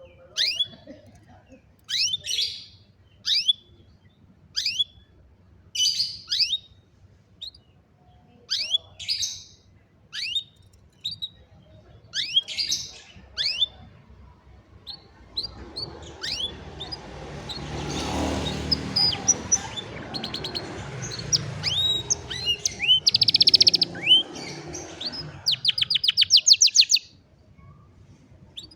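Canary singing: sharp, falling chirps repeated about once a second, then fast rolling trills near the end. A rushing noise swells and fades under the song through the second half.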